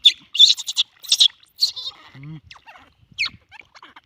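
Baby monkey screaming in fear of the water: a rapid run of shrill, high-pitched screams in the first two seconds and another scream about three seconds in.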